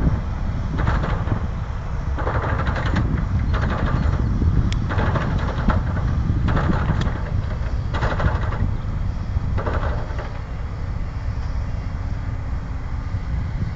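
Heavy earthmoving machinery, a large tractor pulling a scraper, running as a steady low rumble. A rushing surge comes back roughly every second and a half, then settles after about ten seconds.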